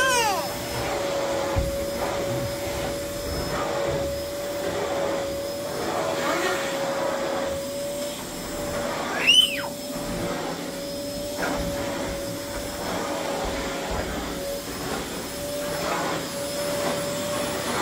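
Canister vacuum cleaner running steadily with a constant motor whine while its nozzle is worked over a thick rug. A brief high squeal rises and falls about nine seconds in.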